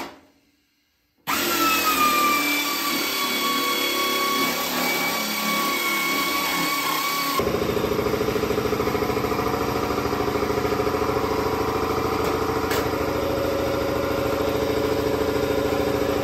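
After about a second of silence, a handheld power tool runs steadily with a high whine that sags a little in pitch as it first bites. About halfway through it gives way abruptly to a lower, steady hum with a fast flutter.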